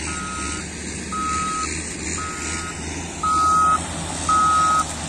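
Reversing alarm of a motor grader beeping about once a second, five even beeps that get louder near the end, over the steady low hum of its engine running.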